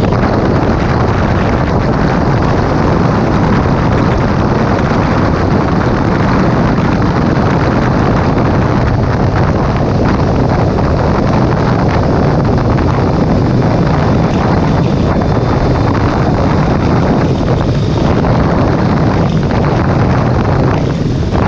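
Steady wind rush over the microphone of a sport motorcycle riding along a highway, with the bike's engine and tyre noise underneath.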